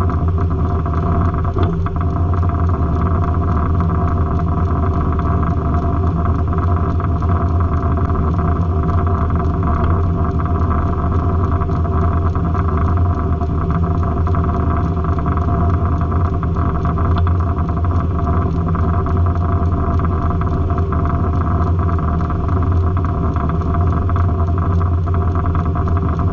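Circle sawmill running, a steady engine drone that holds one pitch throughout.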